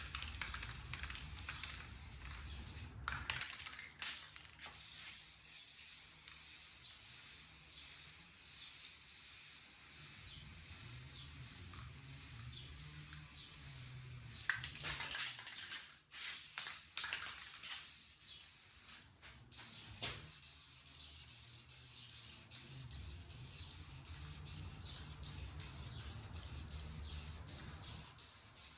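Aerosol spray paint can spraying in long, steady hisses, with short breaks between passes; near the end it goes in quick short bursts about twice a second.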